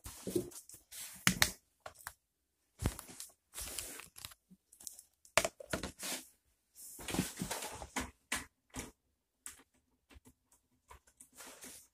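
Handling noise: irregular rustles, scrapes and light knocks as things on a tabletop are moved about, including a cardboard microphone box being turned around.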